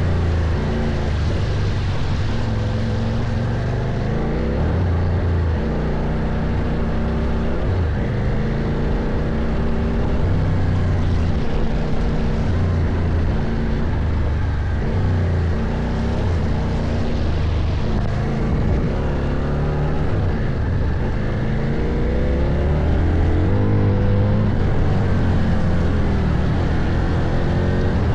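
CFMOTO Ibex 800 adventure motorcycle's parallel-twin engine running under load on a trail, its note rising and falling as the throttle opens and closes.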